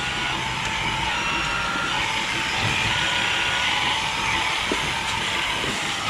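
Milking parlour machinery running: a steady hiss of vacuum air with thin whistling tones over a low rumble, as teat cups are put on a cow.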